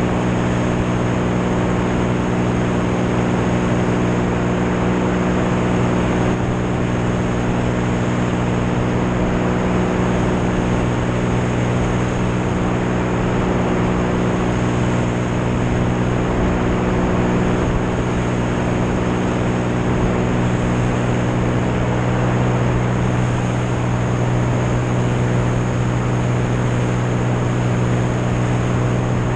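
Single-engine propeller airplane in steady cruise: a constant low engine and propeller drone under a loud rush of airflow over the wing-mounted camera, unchanging throughout.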